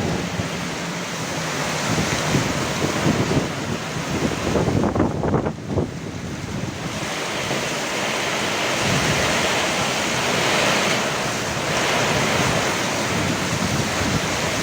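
Heavy rain pouring down in a steady rush, with gusts of strong wind buffeting the microphone. The rush briefly thins about five seconds in.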